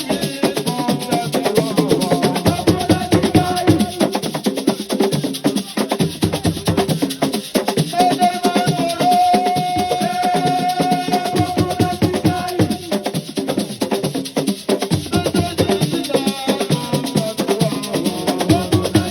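Assiko percussion music: fast, dense drumming with shakers, and one long held note from about eight seconds in.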